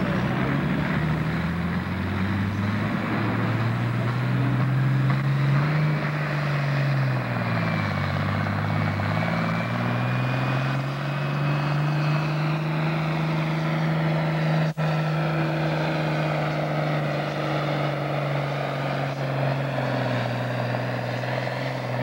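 Farm stock pulling tractor's diesel engine running hard under the load of the pulling sled. About a third of the way through, its pitch sags as the engine lugs down, then it climbs back and holds a steady, loud note.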